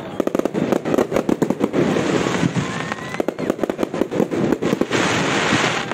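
Aerial fireworks going off: a rapid run of sharp bangs and crackles, several a second, with a stretch of steady hissing crackle about five seconds in.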